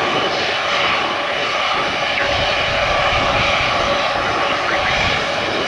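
Jet airliner engines running with a loud, steady noise that swells slightly now and then.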